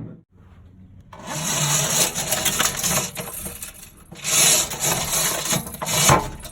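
Rough scraping, rubbing noise made for a sound effect, in two long stretches: one starting about a second in, the other about four seconds in and cutting off suddenly at the end.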